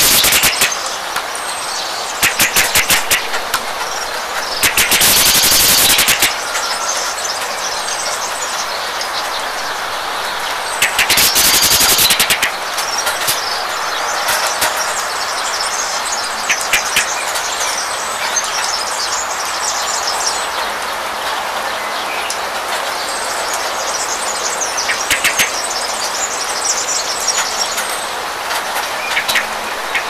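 Steady rain with small birds chirping now and then. Several loud bursts of rapid clattering ticks, each a second or two long, stand out in the first half, with a few weaker ones later.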